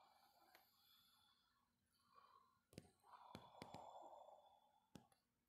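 Near silence: indoor room tone with a few faint clicks and a faint muffled noise in the second half.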